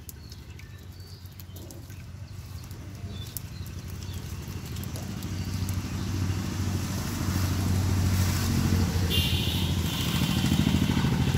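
An engine running steadily, growing louder over several seconds.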